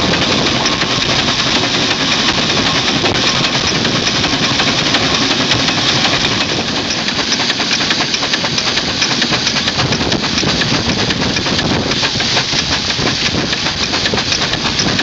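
Steam ploughing engine running, with rapid, even exhaust beats over a steady hiss of steam.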